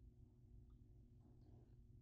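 Near silence: a steady low hum of room tone, with a few faint soft sounds of cooked chicken breast being pulled apart by hand.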